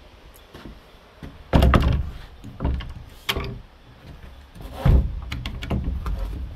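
A series of heavy thuds and knocks, about six loud ones a second or so apart, with lighter knocks and rustling between.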